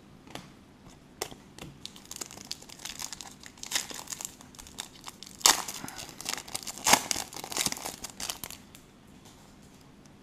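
A foil Select Soccer trading-card pack being torn open by hand, its wrapper crinkling, with the loudest rips about five and a half and seven seconds in.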